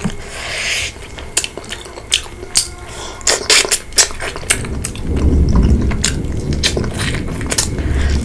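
Close-up eating sounds: chewing and biting with sharp clicks of cutlery against a plate. About five seconds in, a low rumble of thunder joins and keeps going.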